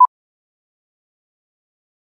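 A single very short electronic beep at the very start, then dead digital silence.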